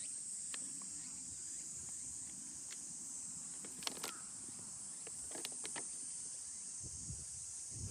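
Steady high-pitched insect chorus, with a few sharp clicks, the loudest about four seconds in.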